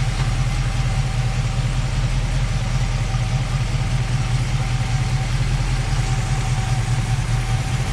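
Car engine idling steadily, a low hum with a faint steady whine over it, run with the radiator cap off to burp air out of the cooling system.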